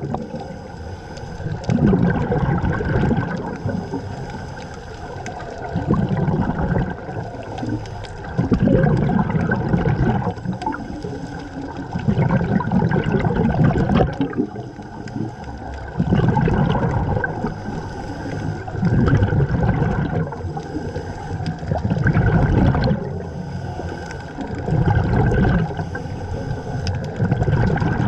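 A scuba diver breathing underwater through a regulator: rushes of exhaled bubbles come every three to four seconds.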